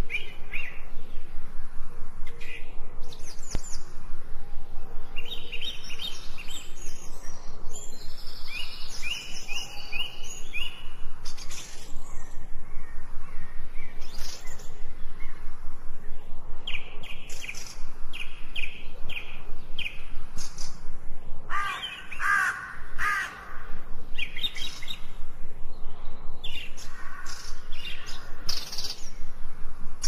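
Wild birds chirping and calling, with quick runs of short repeated chirps and a louder, lower call about two-thirds of the way through.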